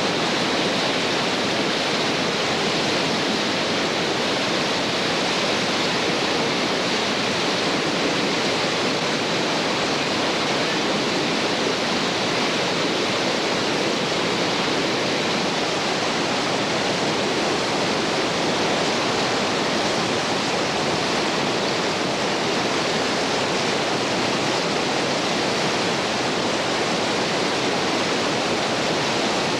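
Whitewater rapids on a creek in high water, a steady rushing with no breaks or changes.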